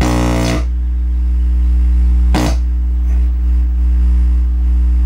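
A 60 Hz test tone played through a bench speaker by an SVS Bash subwoofer plate amplifier: a steady low hum, showing that the amplifier is putting out a signal. Two short noises cut in, one right at the start and one about two and a half seconds in.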